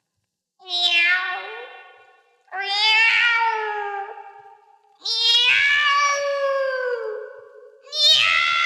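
Four long, drawn-out cat meows, one after another, each trailing off at the end.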